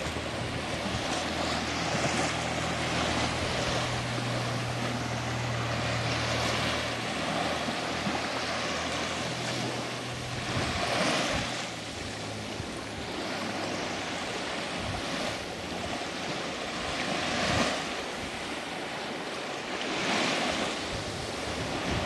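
Small waves washing in shallow water at a sandy shore, swelling every few seconds. A low steady drone lies under the water sound for about the first half and then fades out.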